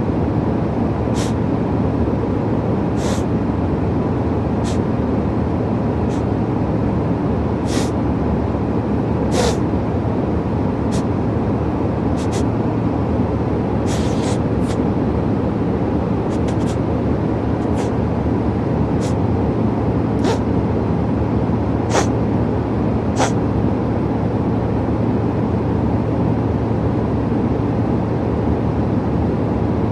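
A man sniffling over and over from illness, a short sharp sniff every second or two, stopping about 23 seconds in. Under it runs the steady loud drone of a plane's cabin.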